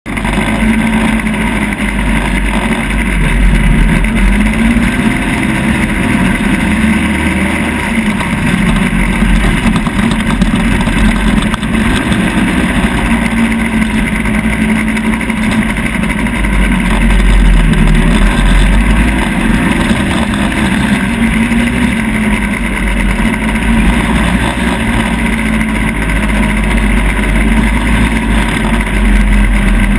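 ATV engine running as the quad is ridden, its pitch rising and falling with the throttle, over a steady low rumble.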